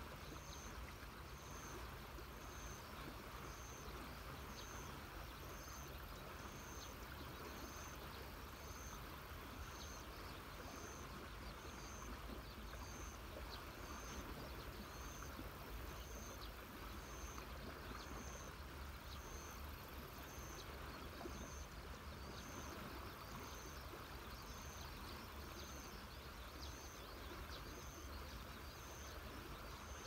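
Faint, steady rush of a river, with an insect giving a short high chirp about every 0.8 seconds.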